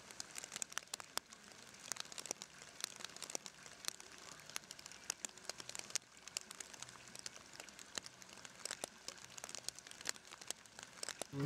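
Faint, irregular crackling and clicking over a low hum.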